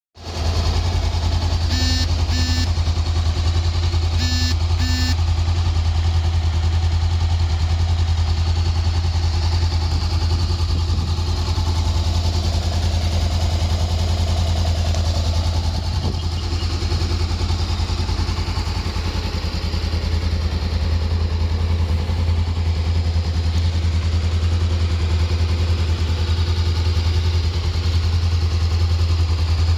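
Honda CBR500R parallel-twin engine idling steadily. A few short high beeps sound about two and five seconds in.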